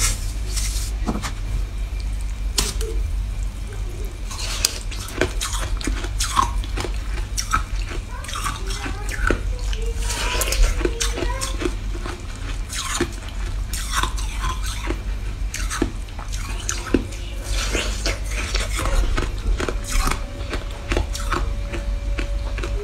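Syrup-soaked shaved ice crunching and crackling in irregular bites and chews, with syrup dripping and splashing as it is poured over the ice near the start. A steady low hum runs underneath.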